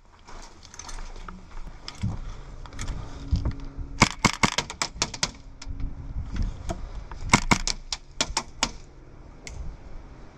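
Airsoft gunfire: bursts of rapid sharp cracks, the longest about four seconds in, then two shorter bursts about seven and a half and eight and a half seconds in.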